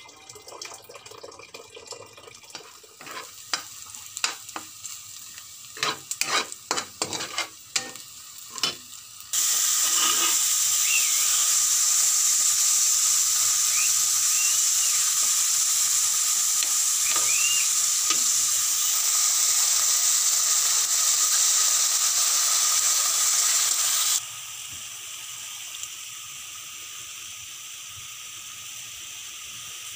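Scattered clinks and knocks from utensils in a cooking pot. After about nine seconds comes a loud sizzle of ground pork frying in a wok as it is stirred with a metal spatula. Near the end it drops abruptly to a quieter, steady sizzle.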